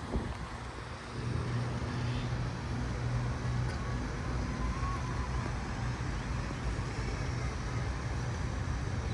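A motor vehicle's engine running, a steady low hum that sets in about a second in, over the noise of street traffic.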